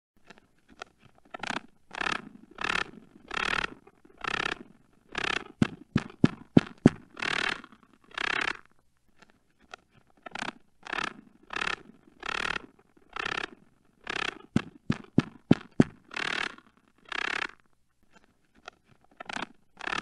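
Sound effect billed as a spider mating: a series of short, dry scraping rasps, each about half a second long, broken twice by a quick run of sharp clicks at about four a second.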